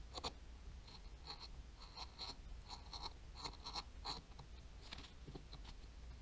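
Faint, irregular clicking and ticking of small parts of a Daiwa Tatula 100 TWS baitcasting reel being handled and fitted together, a few clicks a second.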